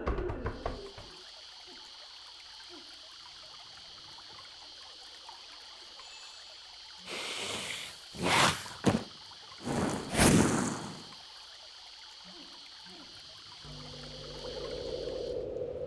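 Water trickling and pouring, with a few louder pouring surges in the middle, over a steady high-pitched hiss.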